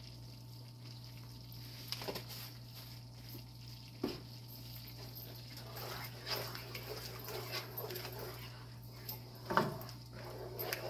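A wooden spoon stirring thick, creamy tomato sauce in a skillet, scraping and sloshing in repeated strokes, after a few sharp taps from a seasoning shaker. A steady hum runs underneath.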